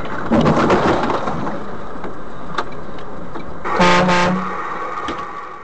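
Steady road and cab noise with a harsh noisy stretch in the first second, then a vehicle horn blares once for under a second about four seconds in; the sound fades near the end.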